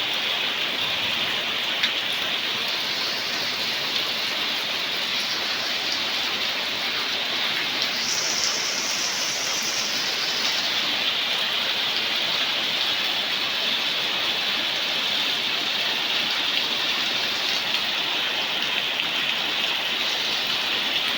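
Steady rain falling, an even hiss with the odd louder drop standing out.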